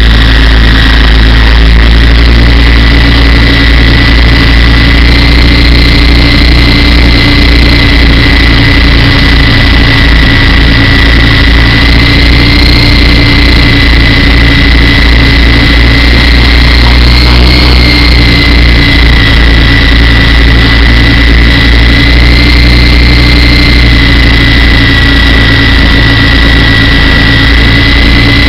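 Radio-controlled model helicopter in flight, heard from a camera mounted on the helicopter itself: a loud, steady drone of motor and rotors with a rough low rumble and a high whine that wavers slightly in pitch.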